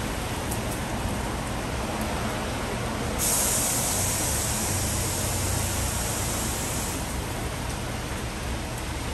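A steady background noise, then a loud hiss of compressed air that starts suddenly about three seconds in, runs for about four seconds and fades away, typical of an air line or blow gun in a tyre shop.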